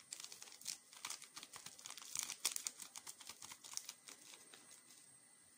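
A small paper sachet of vanillin crinkling as it is handled and tipped to pour, a run of small crackles that thins out and fades over the last second or so.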